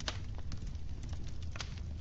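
Wood fire crackling: irregular sharp pops and snaps, the loudest right at the start, over a steady low rumble.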